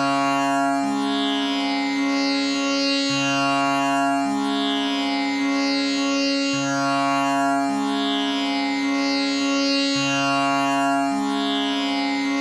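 Tanpura drone tuned to C sharp (A = 440), its strings plucked one after another in an unbroken cycle that repeats about every three and a half seconds. Rich overtones sweep up and down over the steady tonic.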